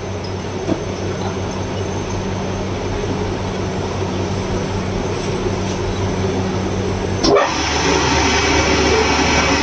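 Common-rail diesel injector test bench running with a steady mechanical hum. About seven seconds in there is a knock, and after it the bench runs a little louder with more hiss.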